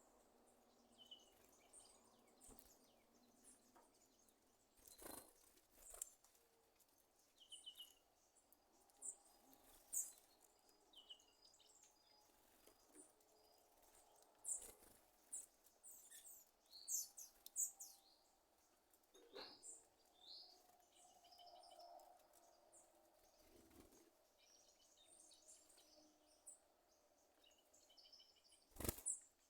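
Sabiá thrush giving faint, scattered popping clicks and short high chirps that sound like popcorn popping, with a few louder clicks among them.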